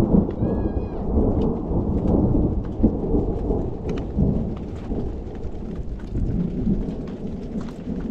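Thunder rolling as a continuous deep rumble, with light rain ticking now and then.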